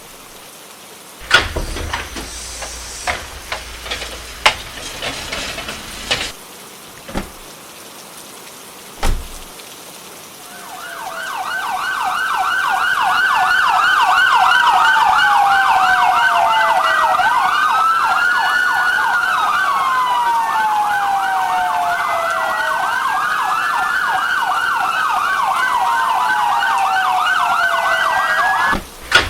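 Emergency vehicle siren fading in about ten seconds in: a fast yelp sweeping rapidly up and down, with a slower wail rising and falling over it, then cutting off suddenly near the end. Before it come a few seconds of sharp clicks and knocks.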